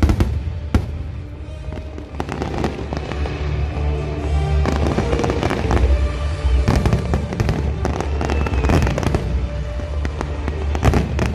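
Fireworks display: sharp bangs of shells bursting twice near the start and again near the end, with a dense spell of crackling in between, over music with a steady deep bass.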